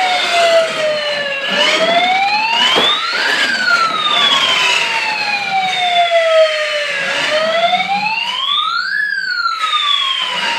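Electronic wailing siren of a remote control toy fire truck, sweeping up for about two seconds then gliding down more slowly, twice over.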